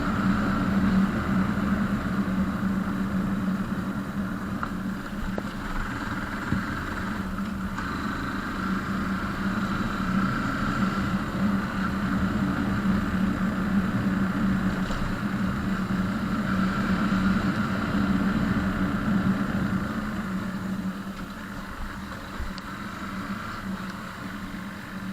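A vehicle engine running steadily with road noise, getting quieter over the last few seconds.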